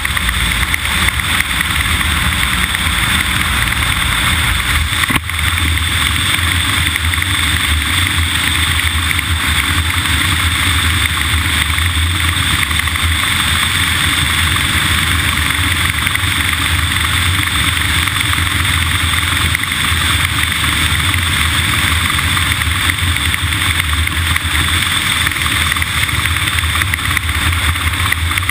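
A vehicle running steadily, with a low engine hum under constant noise. The low hum shifts slightly about five seconds in.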